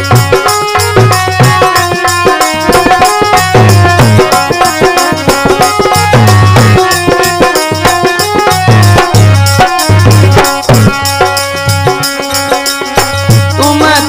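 Instrumental break in a Rajasthani devotional bhajan: a melody line played over a fast, steady drum and rattle beat.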